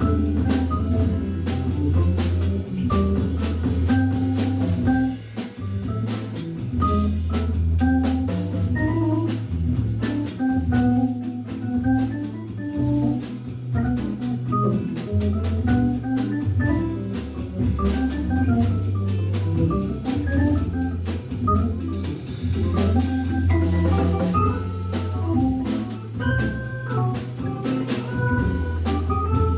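A Hammond B3 organ trio playing jazz: the organ sounds held low bass notes under short melodic notes, and a drum kit keeps time with steady cymbal and drum strikes.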